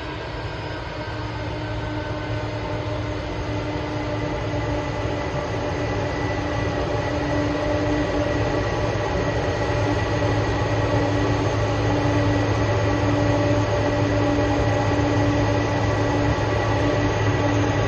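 A Boeing 747's four jet engines at takeoff power: a steady rush of noise with held whining tones, growing gradually louder as the aircraft approaches.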